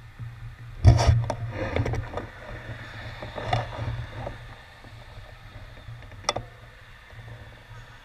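Rattling clicks and knocks from the bicycle and its handlebar-mounted camera as the stopped bike is shifted. The loudest cluster comes about a second in, a smaller one around three and a half seconds, and a single sharp click at about six seconds.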